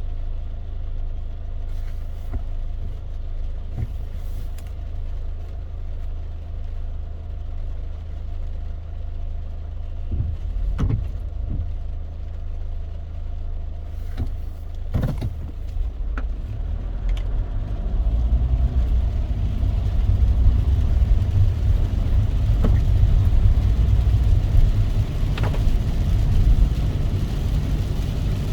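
A car driving in the rain: a steady low rumble of engine and tyres, growing louder about two-thirds of the way through, with a few scattered sharp ticks.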